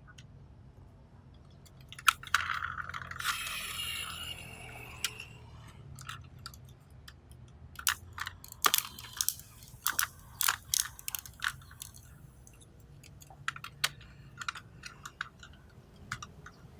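Hard plastic toy vehicles being handled. A knock about two seconds in leads into a few seconds of scraping rattle, then a run of sharp clicks and taps.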